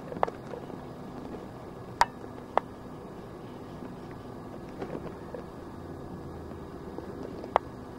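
Steady low background hum broken by four sharp clicks or taps, the loudest about two seconds in and another near the end.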